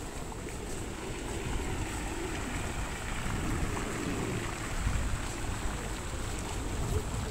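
Wind rumbling on the microphone over a steady wash of outdoor noise.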